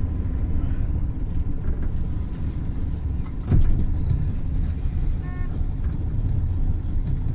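Small boat's engine running with a steady low rumble. There is a single knock about three and a half seconds in and a brief high squeak a couple of seconds later.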